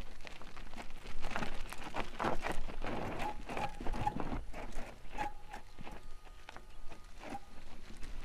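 Bicycle riding over a rocky dirt trail: tyres crunching on loose stones and the bike rattling with irregular knocks as it bumps along, with a few short squeaks midway.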